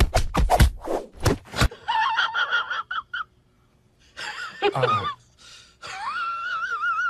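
A quick run of breathy, rustling strokes, then high wavering cries. A short cry comes about two seconds in and a falling one near the middle, and a long cry near the end has a shaking pitch.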